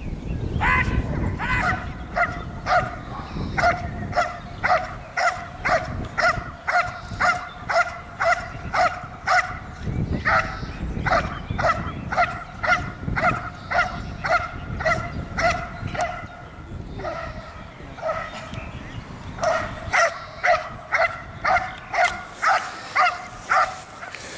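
Belgian Malinois barking steadily at a motionless helper in a bite suit, about two barks a second, with a lull of a few seconds past the middle before the barking picks up again. This is the guarding part of a protection trial, where the dog holds the helper at bay by barking rather than biting.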